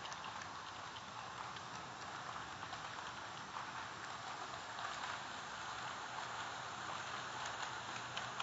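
Kato N scale model freight trains running on Unitrack: a steady, light rolling hiss with faint scattered clicks.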